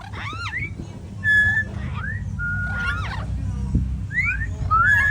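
Several birds calling together in short whistled notes, some arching up and down and some held level, overlapping one another over a steady low rumble.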